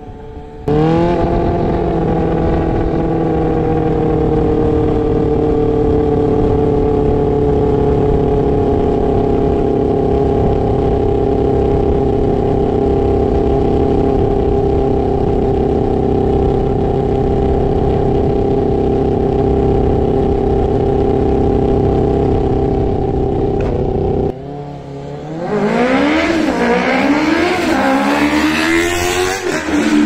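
Honda CBR600 F4i inline-four engine held at steady high revs for over twenty seconds, its pitch sagging slowly. After a brief break it revs up and down repeatedly in quick throttle blips.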